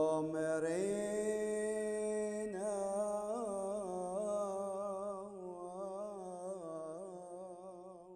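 A man's voice chanting a slow, ornamented liturgical melody in long held notes, slowly fading out.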